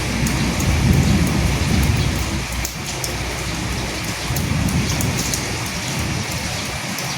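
Steady rain falling, with the sharp ticks of single drops over the hiss, and a low rumble of thunder swelling twice: about a second in, and again near five seconds.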